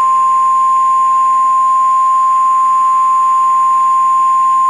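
Steady, unbroken single-pitch alert tone of a mock Emergency Alert System tornado warning, matching the 1050 Hz NOAA Weather Radio warning alarm tone.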